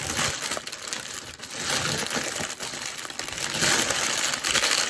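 Food packaging being handled and crinkled close to the microphone: a continuous crackling rustle that grows louder in the second half.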